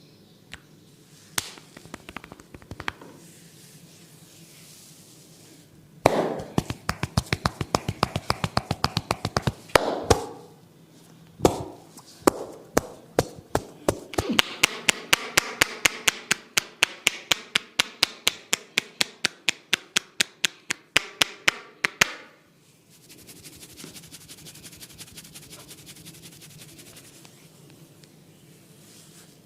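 Massage tapping by a barber: a few scattered taps, then a fast run of sharp strikes, then a long even run at about three to four strikes a second, ending in quieter rustling.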